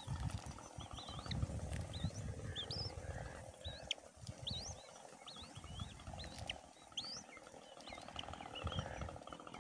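Short, high chirping bird calls, two or three a second, each sliding up and down in pitch, over a low rumble.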